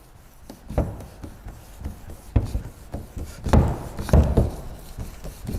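Wet 2000-grit sandpaper on a hand sanding block rubbed back and forth over a car's single-stage paint, in uneven strokes with a few louder scrapes, shaving off the oxidised top layer of paint.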